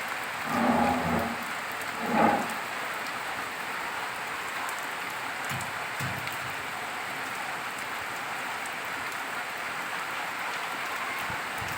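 Steady rain falling and pattering on surfaces, an even hiss throughout. Two brief, louder pitched sounds stand out in the first few seconds.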